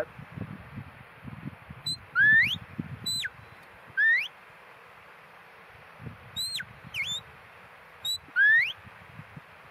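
A handler's shepherd's whistle commands to a working sheepdog: a series of short, sharp whistles, some rising and some falling in pitch, in two groups with a gap of about two seconds midway.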